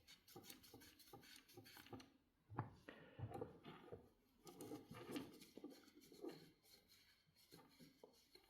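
Near silence with faint handling noises: scattered light taps and rubbing as kettle parts are handled, with a slightly louder knock about two and a half seconds in.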